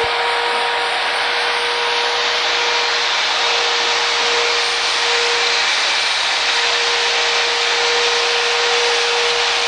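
Handheld electric drill-type rotary tool running continuously against a metal sculpture: a constant high whine over a steady grinding hiss.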